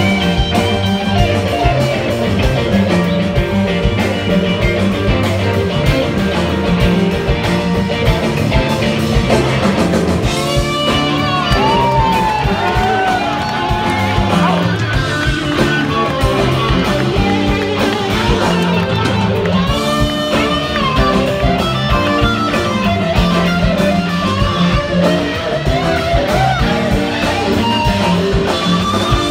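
A live rock band playing an instrumental jam, with an electric guitar lead bending notes over bass, keyboards and drums.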